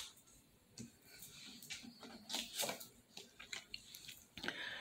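Faint scattered rustles and light taps of paper cards being set down and picked up from a wooden desk.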